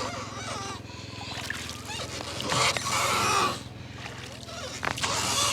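Steady low drone of a moving boat's motor, with two rushing bursts of noise of about a second each, one a couple of seconds in and one near the end.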